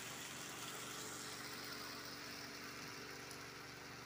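A steady mechanical hum over a faint hiss.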